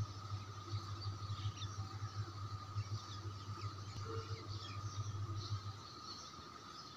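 Small birds chirping in many short high calls over a low steady hum that stops about six seconds in, with a faint steady high tone underneath.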